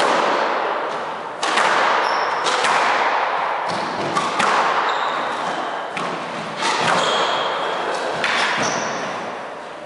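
Squash rally: the ball smacks off racquets and the court walls about every second, each hit echoing in the enclosed court, with short high squeaks from the players' shoes on the wooden floor.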